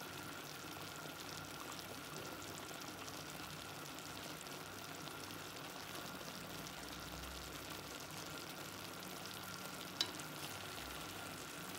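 Clay tajine of meat and vegetables simmering: a faint, steady sizzle and bubble of the cooking broth, with one short click of a metal spoon against the dish about ten seconds in.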